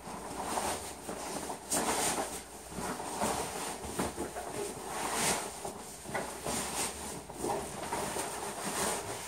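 Fabric backpack rustling and scraping as it is pulled out, turned over and handled, in a continuous run of irregular brushing strokes.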